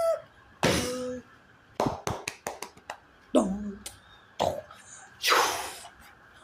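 A string of short, separate vintage cartoon sound effects. About half a second in comes a noisy burst with a low honking tone. A quick run of sharp clicks and knocks follows, then a falling voice-like squeal, and near the end a long hissing burst.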